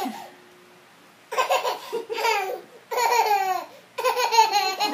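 A toddler laughing in three high-pitched bursts, the first starting about a second in, each falling in pitch.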